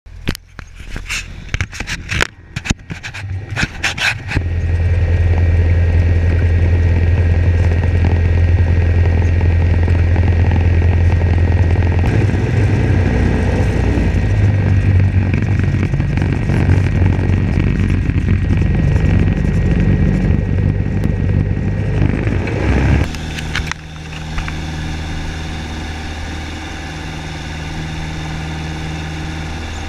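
Cessna 172's piston engine and propeller heard from inside the cabin, a loud steady drone. In the first few seconds there are sharp knocks from the camera being handled. About 23 seconds in the drone drops to a quieter steady hum.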